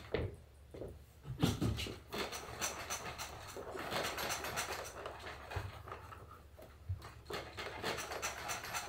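Hands rubbing, pulling and pressing the leather of a saddle seat as it is worked down over the saddle tree, an irregular run of scuffs and rubs with a few light knocks.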